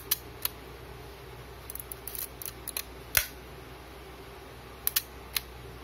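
Mechanism of a vintage Agfa Super Silette-L camera clicking as its controls are worked: a few sharp clicks, a run of small clicks about two seconds in, one louder click about three seconds in, then three more clicks near the end.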